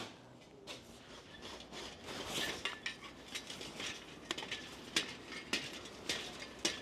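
Irregular metallic clinks and knocks of hands and boots on steel scaffold tubes and fittings as a person climbs up a scaffold.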